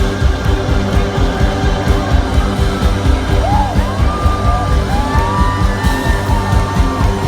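Live rock band playing an instrumental passage with a steady, pulsing beat. From about halfway through, gliding high notes come in over it.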